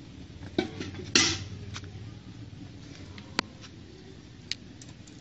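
A few sharp knocks and clicks, and one short, loud scrape about a second in, over a steady low hum.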